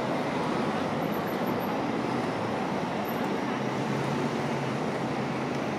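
Steady city traffic noise, with a low engine hum coming in about halfway through.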